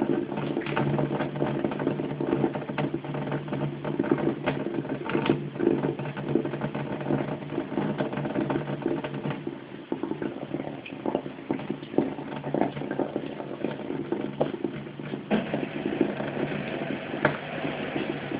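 Kitchen tap running steadily into a sink, with irregular patters and splashes as a kitten paws and plays in the stream.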